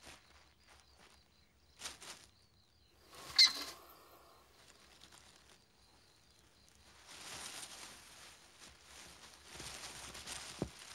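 Common hamsters scrabbling and rustling on the sandy floor of their burrow, faint and in short spells, with one brief, louder, sharper sound about three and a half seconds in.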